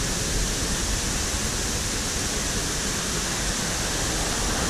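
Steady rushing roar of a nearby waterfall, an even wash of falling water with a low rumble underneath.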